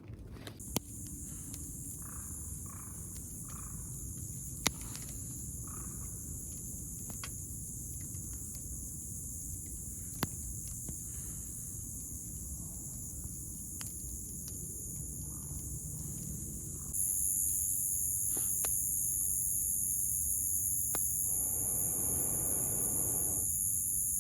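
Steady high-pitched chorus of insects trilling, stepping up in loudness about two-thirds of the way through, with a few sharp clicks in the first half.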